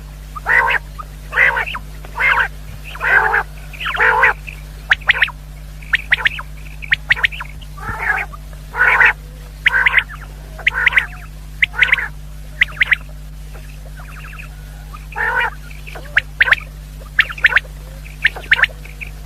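Common quail calling: a string of short, harsh calls, roughly one a second, with a pause of about two seconds past the middle.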